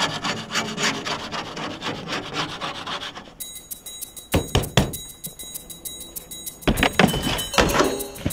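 A snow brush's ice scraper scraping snow and ice off the top of a metal utility box in quick repeated strokes, with a few louder scrapes or knocks later on.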